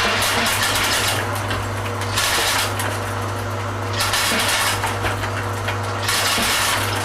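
Candlenut-cracking machine running: a steady motor hum under a dense, fast clatter of candlenuts being cracked and rattling through it. The clatter thickens and thins every second or two.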